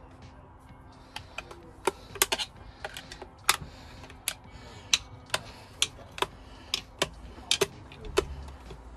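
Irregular sharp metallic clicks and taps, about two a second, as a tool works a circlip off a DSG dual-clutch pack.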